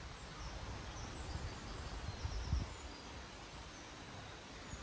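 Outdoor ambience: uneven low wind rumble on the microphone, with a stronger gust about halfway through, and faint short bird chirps.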